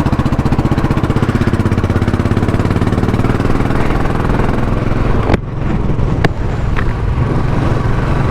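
Royal Enfield Classic 500's single-cylinder engine running steadily with an even, low pulse. A few sharp clicks come about five to six seconds in.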